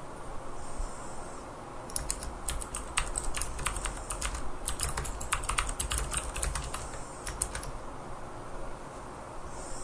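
Typing on a computer keyboard: a run of rapid, irregular key clicks starting about two seconds in and stopping after about six seconds.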